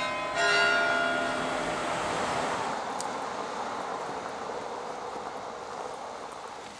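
Carillon bells in a church tower: a strike just after the start, then the tones merge into a ringing wash that slowly dies away.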